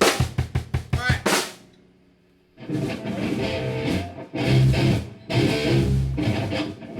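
A band playing a new song: a quick run of drum-kit hits opens it and dies away, then about two and a half seconds in the full band comes in with drums and guitar.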